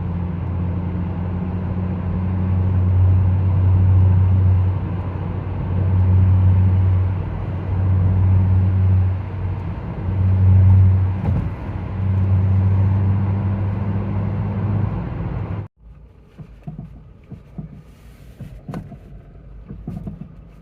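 Low droning hum and vibration from a 2005 Toyota Corolla E120, swelling and fading every second or two. It cuts off abruptly about three-quarters of the way through, and a much quieter stretch with scattered light knocks and clicks follows.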